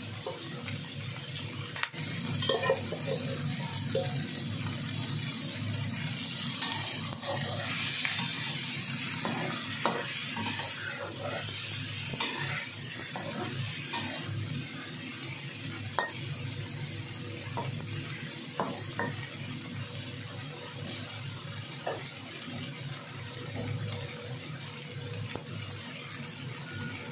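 Whole shell-on shrimp frying in a pan with garlic: a steady sizzle, with scattered clicks and scrapes of a utensil against the pan as the shrimp are stirred and turned.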